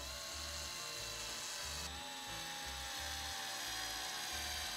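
Small electric motor of a scale Warn 8274 RC winch running with a steady high whine, its pitch stepping down slightly about two seconds in. Background music with a steady beat underneath.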